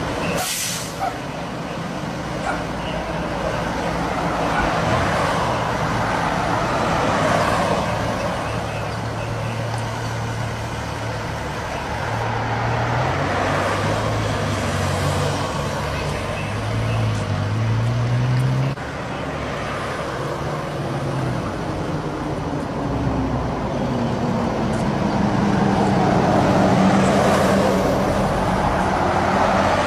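Road traffic: vehicles passing one after another, each swelling and fading, over a low engine hum that shifts in pitch in the second half.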